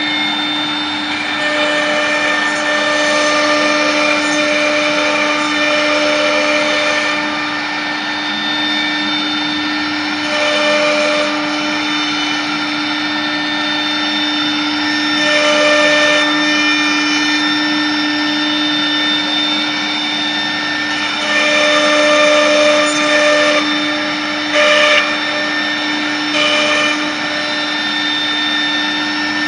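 CNC router running: a steady motor whine with several fixed tones. Every few seconds there are louder stretches where extra higher tones come in and then drop away again.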